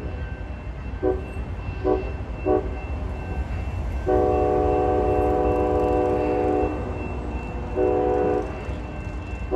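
Diesel locomotive air horn sounding ahead on the tracks: three short blasts, then one long blast of about two and a half seconds and a shorter blast near the end, over a steady low rumble.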